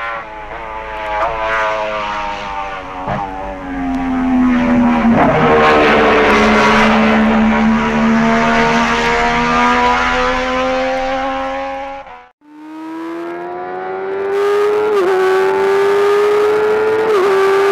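Racing motorcycle engine accelerating hard through the gears, its pitch climbing and dipping briefly at each upshift. The sound cuts out for a moment about twelve seconds in, then a second engine run climbs again with two more upshifts.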